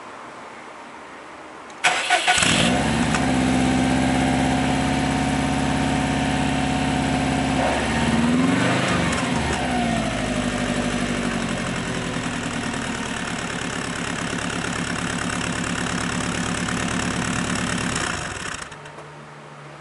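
Subaru Impreza Sports Wagon's flat-four engine cranked and started about two seconds in, then idling through an exhaust fitted with a silencer insert that cuts much of the low bass. It is blipped once briefly in the middle, settles back to idle, and is switched off near the end.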